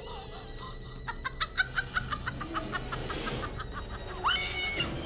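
A horror film's sound track: a harsh, rapid cackling laugh in short sharp pulses, then a brief shrill cry near the end, over low eerie music.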